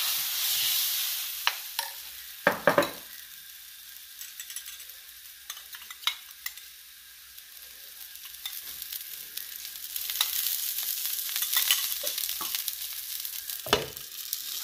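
Hibiscus-leaf dosa batter sizzling on a hot iron tawa after being spread with a ladle. The sizzle fades after the first few seconds and grows louder again about ten seconds in. A few sharp knocks of utensils on the pan, the loudest about two and a half seconds in, and another knock just before the end as a glass lid is set on the pan.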